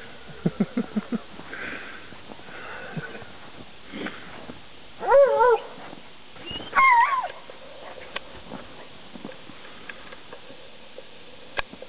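Dogs at play: a quick run of short low grunting sounds about half a second in, then two loud wavering, high-pitched yelping cries about five and seven seconds in. A single sharp click comes near the end.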